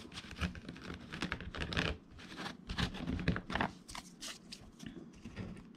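Trading cards and booster-pack foil being handled: a string of irregular soft clicks, rustles and crinkles.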